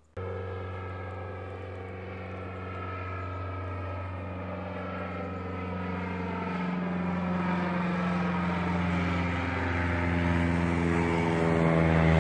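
Single-engine floatplane flying overhead: a steady propeller and piston-engine drone that cuts in suddenly and grows steadily louder as the plane approaches.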